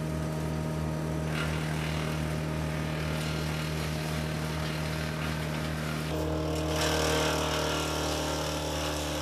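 Morbark wood chipper's engine running steadily while pine branches are fed in and chipped, the chipping noise swelling about six seconds in.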